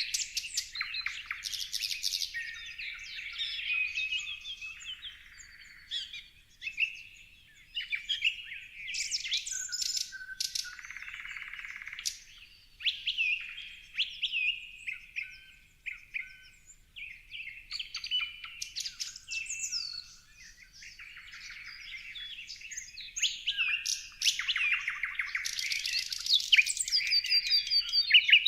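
Several birds singing and calling at once: a busy, overlapping mix of sharp chirps, whistled gliding notes and rapid trills, with the densest chorus near the end.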